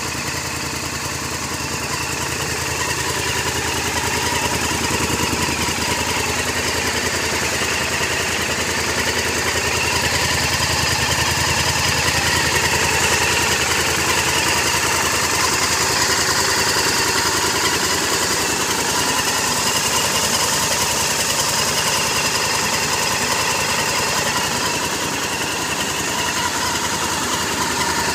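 Honda Varadero motorcycle's V-twin engine idling steadily.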